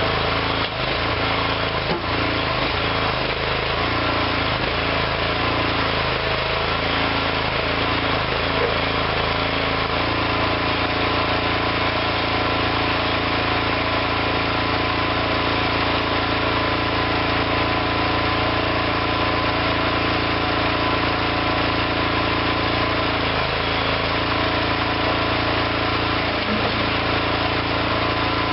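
Small engine of a homemade hydraulic backhoe running steadily. Its lower tones waver for about the first ten seconds, then settle into an even drone.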